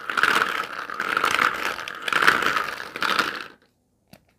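Hollow plastic surprise-egg capsules clattering against one another in a bowl as a hand stirs through them, stopping suddenly after about three and a half seconds. A single click follows near the end as one capsule is opened.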